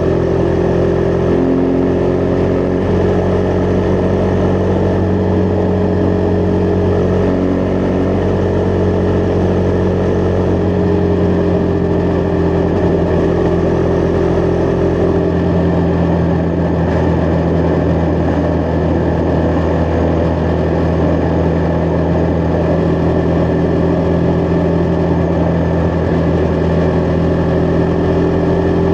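Husqvarna Vitpilen 401's single-cylinder engine running at a steady cruise, its pitch easing slightly down and back up over the stretch.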